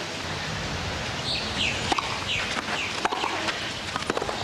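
Tennis rally: a ball struck by rackets, with sharp hits about a second apart, over a steady background noise. A few short high chirps come early on among the hits.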